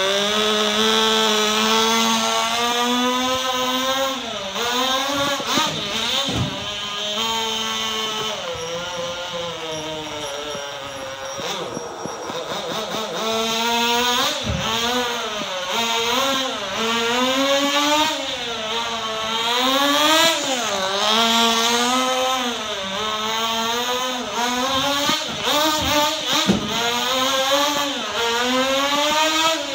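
The small two-stroke nitro engine of a Sportwerks Chaos 1/16 buggy, revving up and down over and over as it is driven round the track, its pitch rising and falling every second or so. A few sharp knocks cut in.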